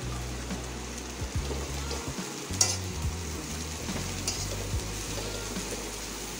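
Sliced cabbage, carrot and capsicum sizzling in hot oil in a metal wok as they are stirred and tossed with a slotted metal spatula. The spatula scrapes and clicks against the pan a few times.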